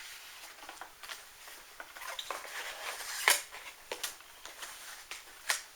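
Hard plastic kit parts and packaging being handled and set down: scattered clicks, taps and rustling, with a sharper knock about three seconds in and another near the end.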